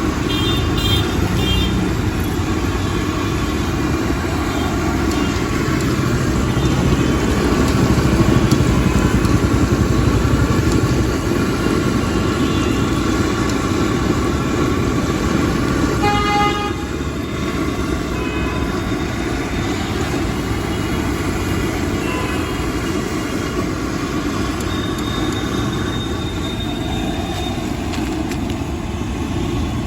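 Loud, steady rumble of passing vehicles on the street, swelling for a few seconds near the middle. Short horn toots come at the start, about halfway through, and near the end.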